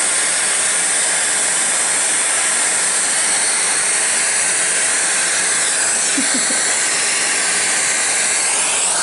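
Vacuum cleaner motor running steadily while standing still, a loud even hiss that stays level.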